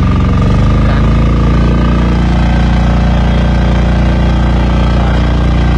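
Engine of a BCS two-wheel walk-behind tractor running steadily under load, driving a Kasava rotary attachment that cuts grass and throws soil into ridges. The engine note settles within the first second, then holds steady.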